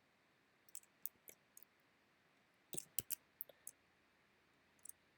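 Computer keyboard keystrokes typed in a few short clusters of clicks, with quiet pauses between them.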